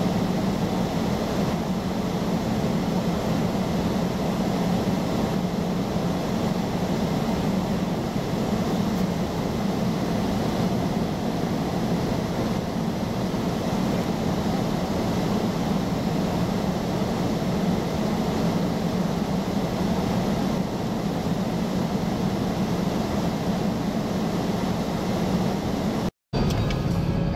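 Steady low hum and hiss of a vehicle cabin, the engine idling with the car stopped. The sound drops out for a moment about a second before the end.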